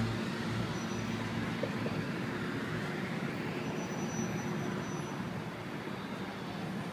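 Street traffic noise: a steady wash of passing vehicles.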